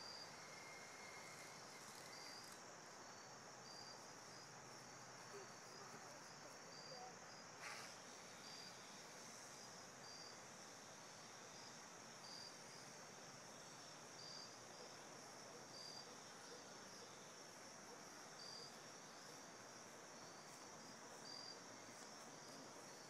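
Faint insects chirping in an even rhythm, about one high chirp a second, over a steady high insect drone. A single brief click comes about a third of the way in.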